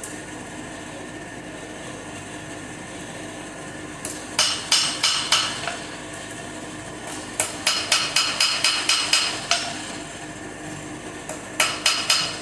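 Hand hammer striking steel on an anvil while forging a caliper leg from spring steel: three runs of quick, ringing metallic blows, the middle run the longest, over a steady low hum.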